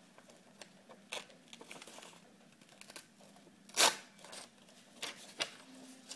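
A sheet of paper torn in half by hand: soft crinkling and small rips, then one loud rip a little before four seconds in, followed by light rustling as the two halves are handled.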